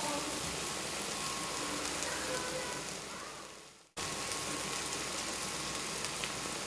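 Chopped tomato and onion masala frying in oil in a pan: a steady sizzling hiss. It fades away a little after three seconds in, then cuts back in abruptly at the same level about a second later.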